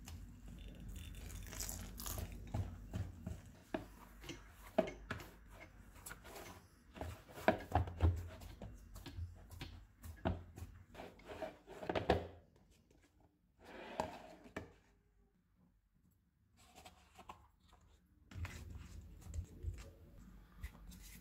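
Hands kneading flour, milk and water into paratha dough in a bowl: irregular crumbly rustling with soft knocks and squishes, broken by a brief near-silent pause about fifteen seconds in.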